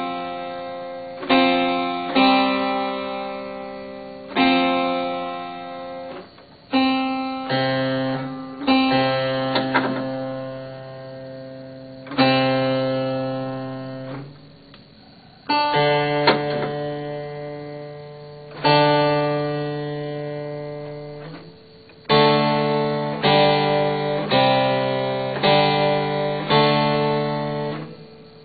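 Harpsichord being tuned by ear: intervals and chords plucked and left to ring down, several steady tones at a time, so the beating of tempered fifths and thirds and of the lower-octave C and D can be heard. Near the end the chords come faster, about one a second.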